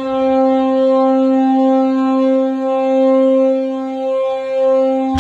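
Mississippi SeaWolves hockey goal horn blowing one long, steady blast, which cuts off near the end as the goal song begins.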